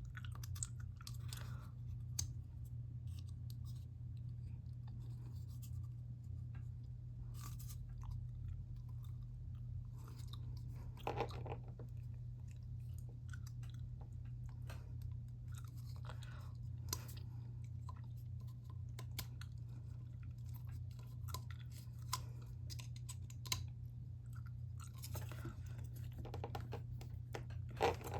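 Scattered small clicks, taps and rustles of hands handling model-rocket parts and tools, over a steady low hum.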